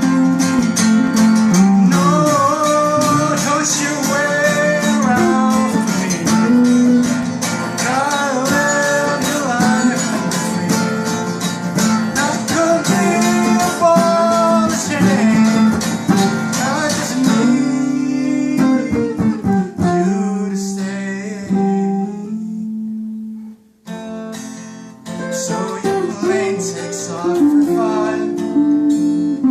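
Acoustic guitar music, a strummed and picked passage without words. It thins out in its last third and drops almost to nothing for a moment about 23 seconds in, then the guitar comes back.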